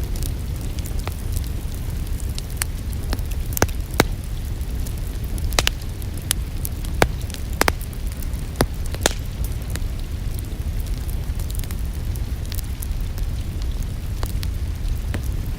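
Wood fire crackling in a fireplace: sharp pops and snaps scattered throughout, thickest between about four and nine seconds in, over a steady low rumble.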